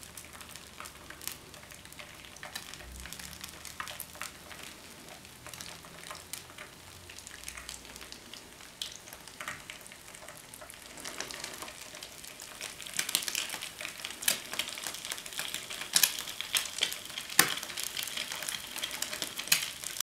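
Eggs frying in oil in a small pan: a sizzle with scattered sharp pops and crackles that come thicker and louder in the second half.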